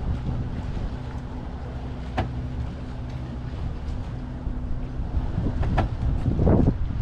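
Wind buffeting an outdoor microphone beside the water, a steady low rumble with a faint low hum under it and a couple of sharp clicks. The wind swells louder near the end.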